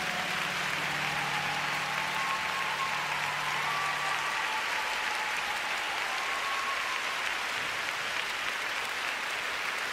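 Arena audience applauding at the end of a figure skating program, while the last low note of the program music fades out about four seconds in.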